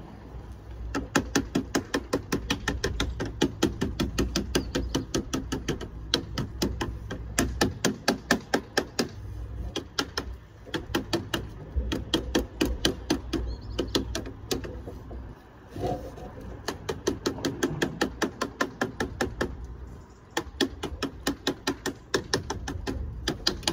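Rapid, even tapping on sheet lead, about four to five blows a second in runs with short pauses: code 5 lead capping being dressed into shape with a lead dresser.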